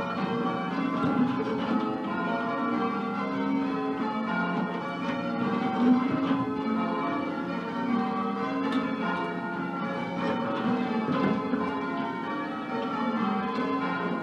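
Change ringing on a ring of ten church bells in F (tenor 13 cwt), a mix of Mears and Stainbank, Gillett and Johnston and Whitechapel bells. The bells are struck one after another in a quick, even rhythm, and their tones overlap.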